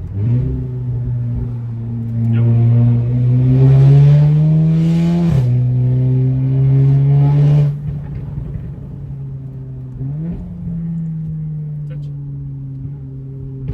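Tuned 2019 Audi S3 8V's 2.0-litre turbocharged four-cylinder, through a custom Rogue Performance exhaust, pulling hard with revs climbing steadily. About five seconds in the pitch drops sharply at an upshift, and it pulls again. Near eight seconds the throttle comes off and it runs quieter, with a brief rev rise near ten seconds.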